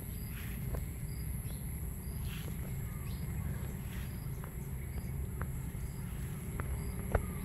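Rural outdoor ambience of insects and birds. A steady high insect drone runs under short high chirps that repeat about once a second, over a low rumble. A few sharp clicks come near the end, the last one the loudest.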